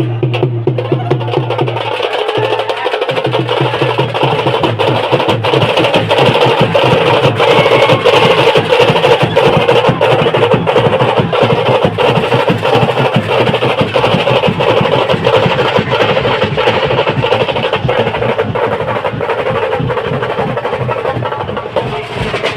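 Loud band music dominated by fast, dense drumming and percussion over a held low bass note, which drops out briefly about two seconds in.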